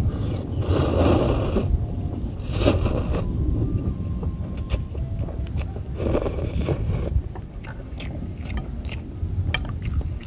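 A man slurping mouthfuls of instant noodles in three loud sucks, about half a second in, around two and a half seconds in, and about six seconds in, with chewing and small sharp clicks between. A low wind rumble on the microphone runs underneath.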